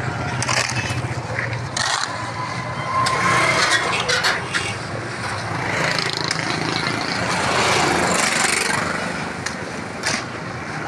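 Steel shovel scraping and scooping through wet concrete mix on the road surface, in repeated strokes with a longer scrape about six to nine seconds in, over the steady hum of street traffic engines.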